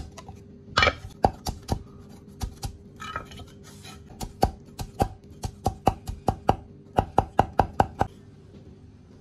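Chinese cleaver chopping fresh ginger on a round wooden chopping block: quick runs of sharp knocks, about four or five a second, broken by short pauses, as the ginger is sliced, shredded and minced.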